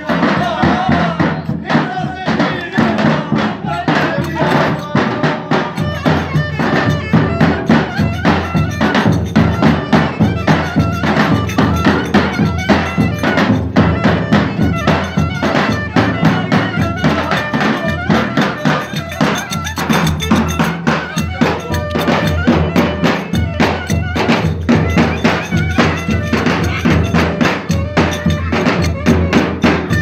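Live Turkish folk dance music: a davul drum beating a fast, driving rhythm under a clarinet playing the melody, with sharp clacking percussion mixed in.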